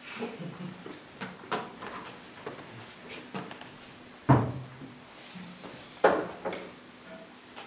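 Hollow knocks and clatter of plastic traffic cones and tubing being handled and set down on a floor, with two louder thumps about four and six seconds in.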